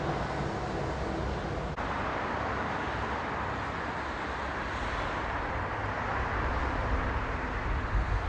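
Steady outdoor noise with a low engine rumble from vehicles, with a brief break in the sound just under two seconds in.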